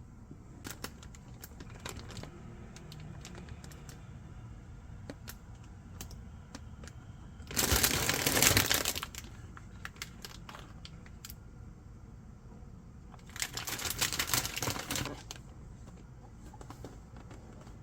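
Handling noises: scattered small clicks and taps, with two louder bursts of rustling or crinkling, each about a second and a half long, in the middle and later part.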